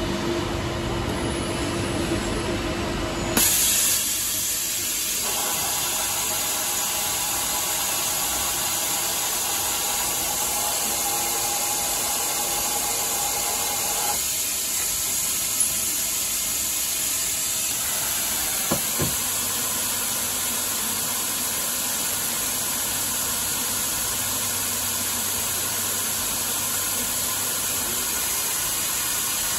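Okuma LT10-M CNC lathe running through a machining cycle. There is a steady motor whine at first; about three seconds in, the coolant comes on with a steady spraying hiss that carries on, with a couple of faint knocks past the midpoint.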